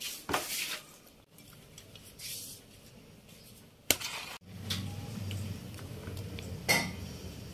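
A wooden spoon stirring and scooping oily mango and green-chilli pickle in a plastic tub: soft squelches and scrapes, with one sharp click about four seconds in.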